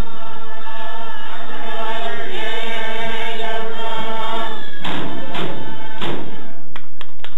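Iñupiaq drum song: a group chanting in unison to large hand-held frame drums struck with sticks. The drum beats drop back for a few seconds, then come in strong again about five seconds in and quicken near the end.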